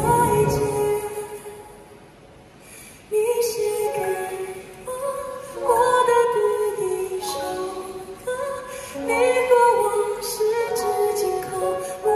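A male singer with a high voice sings a slow Mandarin ballad, accompanied by a grand piano. Low piano notes die away over the first couple of seconds, and the voice comes in about three seconds in, moving from held note to held note.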